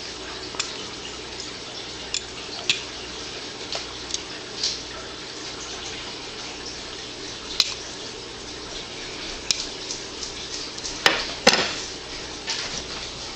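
Scattered small clicks and taps of an alarm clock's parts being handled and worked on, with two sharper knocks about eleven seconds in, over a steady hiss.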